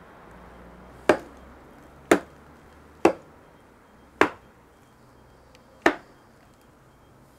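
A heavy rescue hammer chopping into a leftover shoulder bone: five sharp blows, the first four about a second apart, the fifth after a longer pause.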